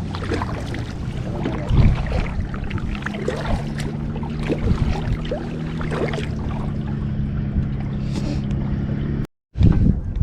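Kayak moving on the water: water splashing and sloshing with wind on the microphone. From about three seconds in, a steady low hum joins it until the sound cuts off near the end.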